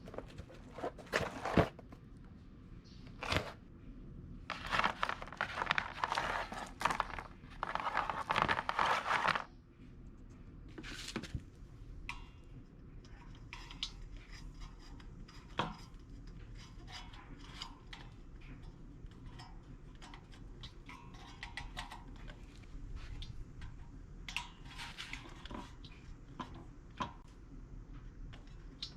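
Hand work with rubber U-channel edge trim and its packaging: crinkling and tearing, with a few louder rustling stretches in the first ten seconds, then softer scattered clicks and taps.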